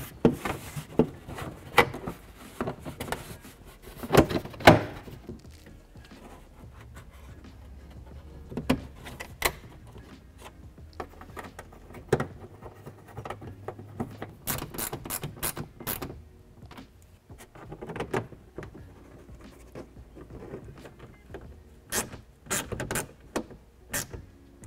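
Plastic fender liner being handled back into place and its retaining clips pressed in by hand: scattered rubbing, knocks and sharp clicks, the loudest knocks about four seconds in and quick runs of clicks about halfway through and near the end.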